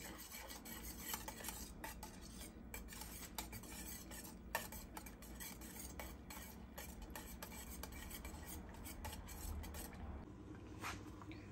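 Wire whisk stirring a liquid mixture in a stainless steel pan: faint, irregular scraping and light clicks of the wires against the pan, with one sharper tick about four and a half seconds in.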